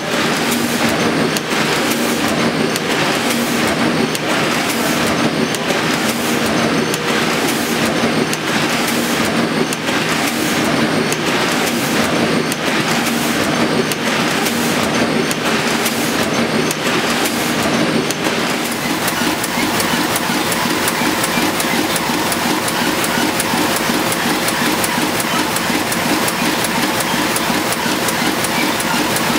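Sheet-fed printing press running, a loud rhythmic mechanical clatter repeating a little more than once a second. A little past halfway it changes to a faster, more even rattle with a steady whine, from a Heidelberg press feeding sheets off its paper pile.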